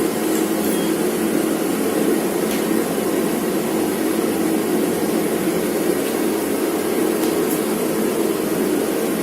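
A motor-driven machine running steadily, a loud, even noise.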